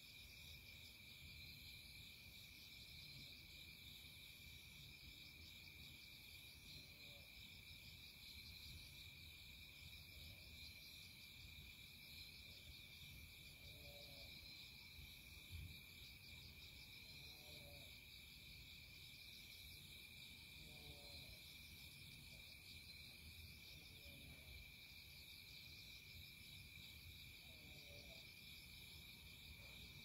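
Faint chorus of crickets: a steady high trill with a rhythmic pulsing chirp above it, a soft lower call recurring every few seconds, and one brief low thump about halfway through.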